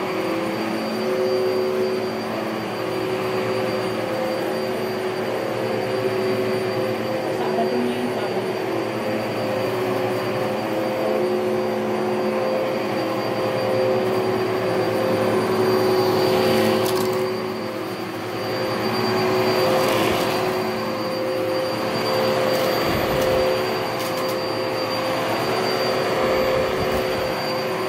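Upright vacuum cleaner running steadily as it is pushed over carpet, its motor giving a constant whine.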